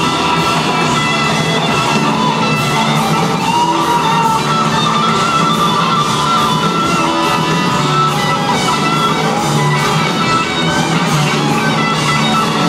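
Live hard rock band playing loud, with distorted electric guitar over drums, heard from the crowd in a concert hall.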